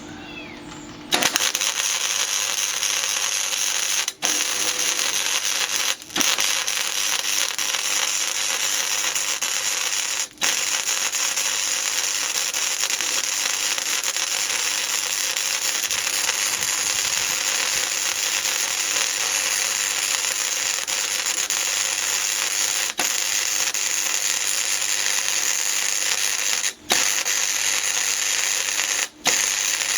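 Electric arc welding on a steel rack: a loud, steady crackle that starts about a second in. It stops for a moment about five times as the arc is broken and struck again.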